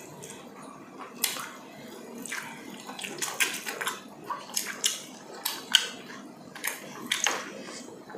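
Wet eating sounds: chewing and lip smacks at irregular intervals, several sharp smacks a second at times, as two people eat grilled yellowfin tuna and chicken with their hands.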